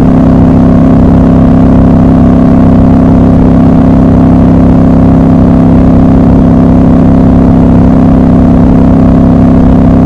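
Triumph Scrambler motorcycle running at a steady highway cruise, a loud, even engine drone whose pitch holds constant throughout.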